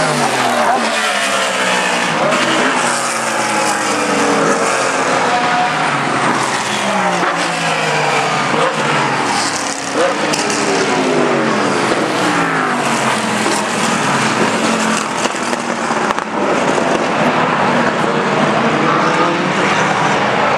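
Race car engines going past at speed one after another, each engine note sweeping down in pitch as it passes, with overlapping cars keeping the noise continuous.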